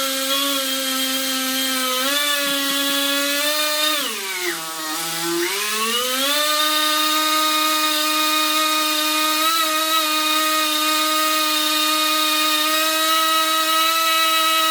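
Small electric motor whining steadily, slowing down as if under load about four seconds in, then picking back up by about six seconds and running steady at a slightly higher pitch.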